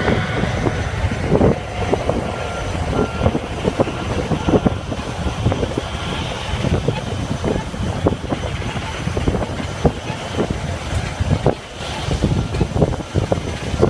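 Steady low rumble of an airliner heard from inside the cabin, with frequent short bumps and a faint steady whine.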